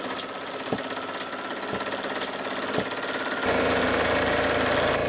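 Kinematic Stirling engine running steadily while a hand bicycle pump is worked to pressurize it, its strokes heard roughly every half second to a second. About three and a half seconds in, the running sound becomes louder and fuller.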